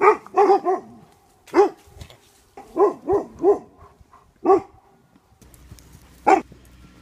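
Small dog barking in short, high yaps, in quick runs of two or three, about ten in all, with a last single bark near the end.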